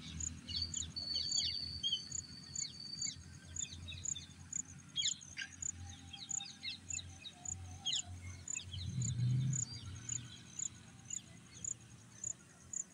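Birds chirping and calling, with short high chirps and a high, even pulsing call repeating about twice a second, over a low rumble; a brief low hum rises about nine seconds in.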